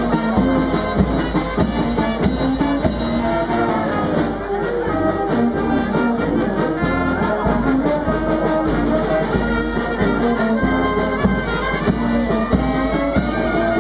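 Street brass band playing a tune: trumpets, trombones and a sousaphone over a steady beat of bass drum and snare.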